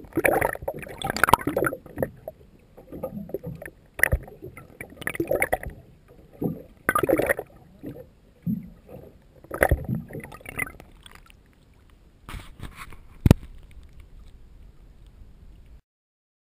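Water sloshing and gurgling around a GoPro's underwater housing held just under the surface beside a boat hull. It comes in irregular surges every second or two, with two sharp knocks, and cuts off suddenly near the end.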